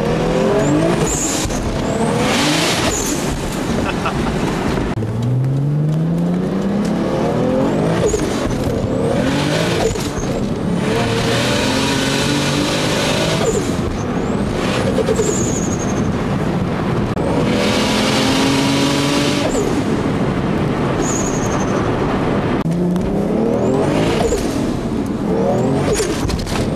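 Engine of a single-turbo Toyota Supra of about 700 wheel horsepower, heard from inside the cabin, its pitch rising again and again as the car accelerates through the gears. Short bursts of high hiss fall between the pulls.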